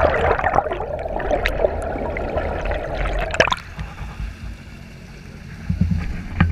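Water gurgling and rushing, heard through an underwater camera, with scattered clicks. About halfway through it cuts off suddenly to a quieter low rumble, with a few low thumps near the end.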